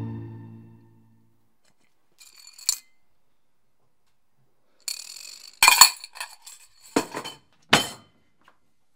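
Coins clinking against a porcelain plate and bowl as they are handled: one light clink, then after a pause a quick run of sharp, ringing clinks in the second half.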